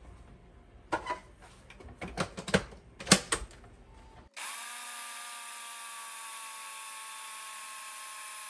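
A few clicks and knocks, then about four seconds in a countertop blender's motor starts suddenly and runs with a steady whine, grinding oats and purple sweet potato with milk.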